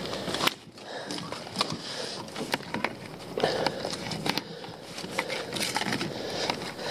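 Irregular clicks, knocks and rustling from a lobster pot being handled, as gloved hands work at its netting and plastic entrance to get a lobster out.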